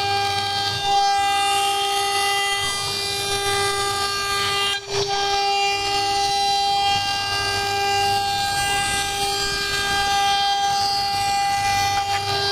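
CNC router spindle running at a steady high-pitched whine while cutting, with the axis motors giving short rising and falling whirrs as the tool moves. There is a short break in the sound about five seconds in.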